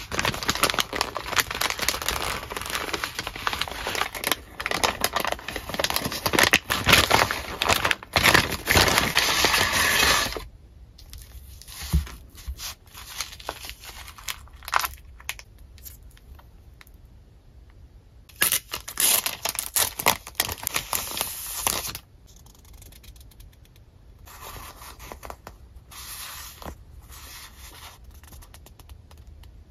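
Paper and plastic packaging being opened and handled by hand, with crinkling and rustling that is loud and continuous for the first ten seconds. It turns to quieter, scattered handling, with another burst of rustling about two-thirds of the way in, then soft shuffling of paper sticker sheets.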